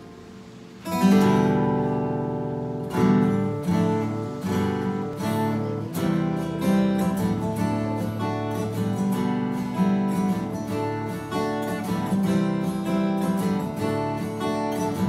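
Solo acoustic guitar playing a song's intro, strumming and picking chords. The first chord comes in about a second in and rings out, followed by a steady run of strummed strokes.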